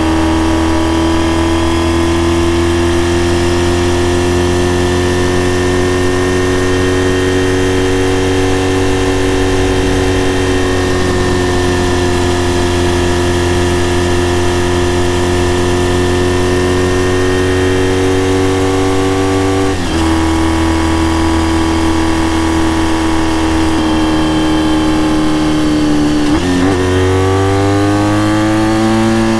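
Honda RVF400 NC35 V4 engine with gear-driven cams, heard through a TSR slip-on silencer while riding, running at a nearly steady engine speed. About two-thirds through there is a brief break, and near the end the pitch drops and then climbs again as the engine pulls.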